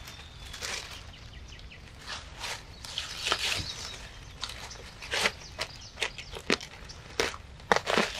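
Leafy ground-cover plants pulled up by hand: rustling leaves and stems with roots tearing out of the soil, and several short, sharp snaps in the second half.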